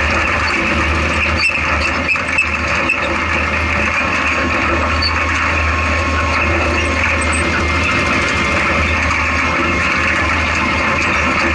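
Off-road race vehicle's engine running steadily under load, heard from inside the open cab, with constant rumble and rattle of the chassis over rough desert ground and a few short knocks in the first three seconds.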